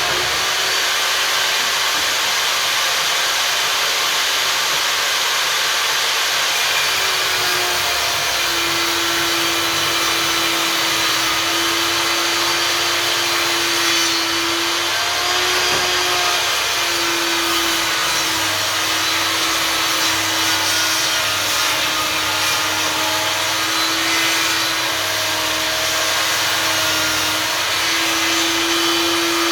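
Einhell table saw running and cutting wooden boards. The motor gives a loud, steady whine that wavers slightly in pitch several times as the blade works through the wood.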